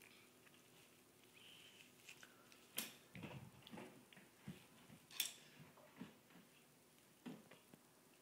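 Scattered light knocks and clicks of small objects being handled on a shelf by a toddler, with two sharper clicks about three and five seconds in and soft thuds between.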